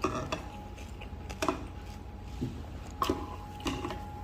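Eating noises at a meal: about five short clicks and smacks over four seconds.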